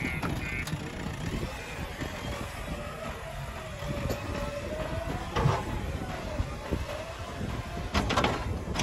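Diesel engine of a JCB backhoe loader running as the machine drives over loose soil, with a whine that wavers up and down in pitch. A knock about halfway and a few more near the end.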